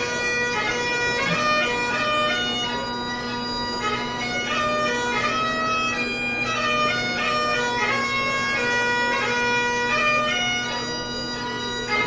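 Bagpipes playing a tune: steady drones sound under the chanter's melody, which moves between held notes with quick grace-note flourishes.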